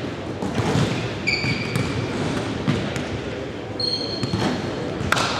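Basketball bouncing and thudding on a hardwood gym floor, with knocks a few times and a louder one near the end. Two short, high, steady squeaks, typical of sneakers on the court, come about a second in and again near the four-second mark.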